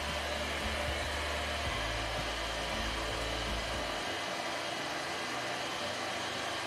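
Steady whooshing noise of moving air, like a blower running. A low rumble underneath stops about four seconds in.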